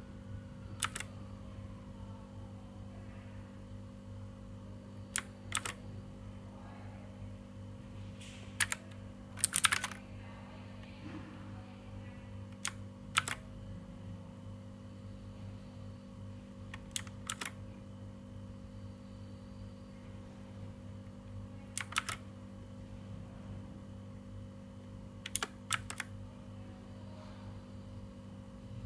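Ajazz AK33 mechanical keyboard keys clicking in pairs or small clusters about every four seconds: the Fn-key combinations that step through its LED lighting modes. A steady low hum runs underneath.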